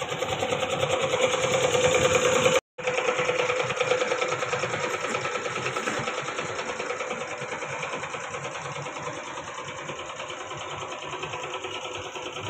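A small machine running with a fast, even mechanical chatter, cutting out for an instant a few seconds in and then slowly growing fainter.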